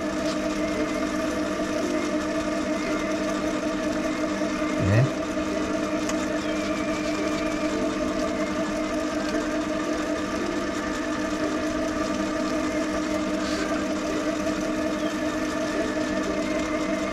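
Small metal lathe running steadily with its chuck spinning while a small hand-held chisel cuts a thin bronze-filled PTFE ring from the workpiece. One brief, louder rising sound comes about five seconds in.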